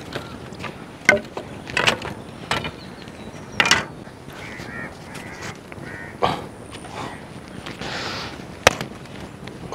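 A handful of sharp, separate wooden knocks and clacks from dry firewood sticks being handled and set in a stone hearth. Between them, birds give short calls.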